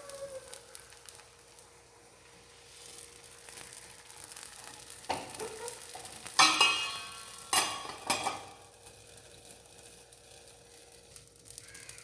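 Palappam rice batter sizzling in a hot pan, with a few loud metallic clanks of pan or utensil about six to eight seconds in.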